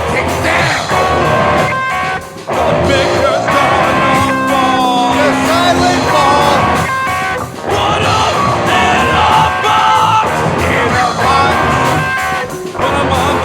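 Loud rock band playing: distorted electric guitars over bass and drums, with brief breaks about two, seven and twelve seconds in.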